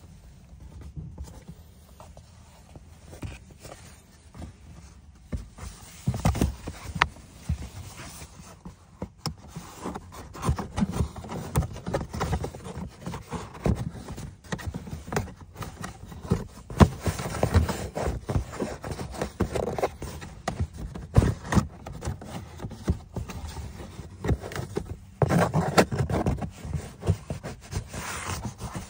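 Hard plastic cabin air filter cover under an Audi glovebox being handled and pushed back into place: irregular knocks, clicks and scrapes of plastic on plastic, louder in a few clusters.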